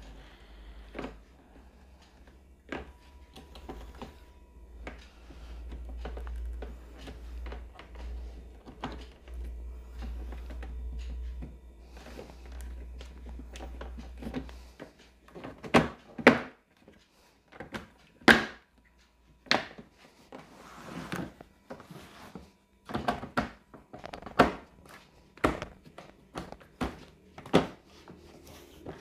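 Plastic panels of a plastic drawer cabinet knocking and clicking as they are fitted and pressed together, irregular knocks that grow denser and louder in the second half. A low rumble runs under the first half and stops about halfway.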